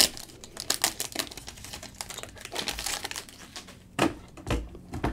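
Trading-card pack wrapper crinkling and crackling as it is torn open and the cards are slid out: a rapid string of small clicks, with three louder snaps near the end.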